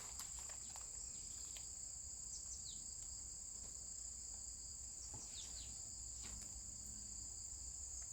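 Steady high-pitched insect chorus, unbroken throughout, with a few faint short descending chirps over it.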